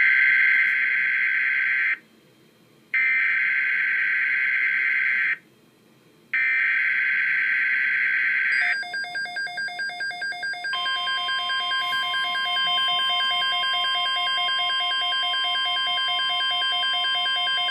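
Emergency Alert System SAME header: three bursts of screechy digital data tones, each about two and a half seconds long with a one-second gap between them. About nine seconds in it gives way to the alert tone, which pulses rapidly for about two seconds and then holds as a steady layered tone.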